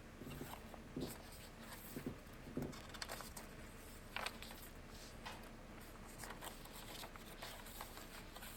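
Faint rustling and light taps of paper pages being turned and handled in a hand-sewn junk journal: several soft sounds, most of them in the first half.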